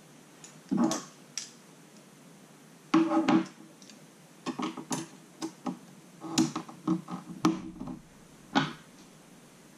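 Plastic snap-together circuit pieces clicking and clacking as they are handled, snapped onto their metal studs and laid on a clear plastic base board. Irregular knocks, a cluster about three seconds in and a quick run of them in the second half.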